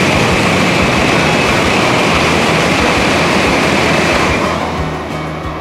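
Tokaido Shinkansen train passing through the station at high speed without stopping: a loud, steady rush of air and wheel noise with a high whine. About four seconds in it begins to fade away.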